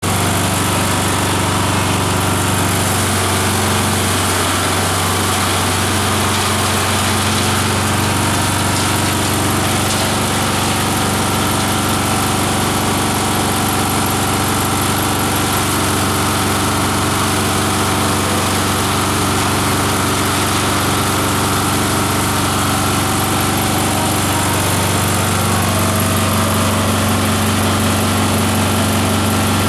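Multi-blade chopper-shredder driven by an 18 HP electric motor, running steadily with a deep, even hum and a dense whir from its blades as leafy green plants are fed through and shredded.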